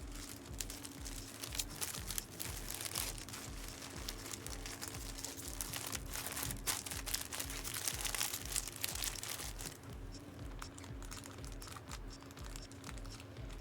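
Foil trading-card pack wrappers crinkling and tearing as cards are handled, an irregular run of rustles and small clicks, busiest in the middle.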